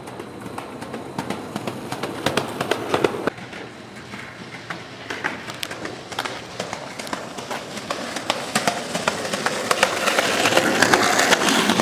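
Skateboard wheels rolling over pavement, with a rumble and repeated clacks as they pass over cracks and seams, growing louder toward the end as the board comes closer.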